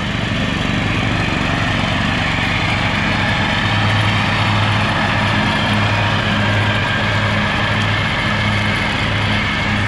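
John Deere riding lawn tractor's engine running steadily as the tractor drives past close by.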